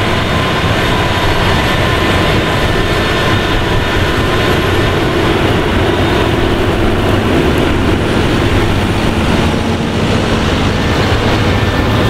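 Claas Lexion 8800 combine harvester and a tractor running steadily side by side while the combine harvests wheat and unloads grain from its auger, a dense, even machine noise with a faint steady whine.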